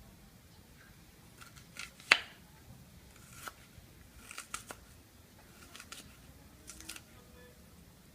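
Scattered light clicks and taps, irregular and spaced out, with one sharper click about two seconds in.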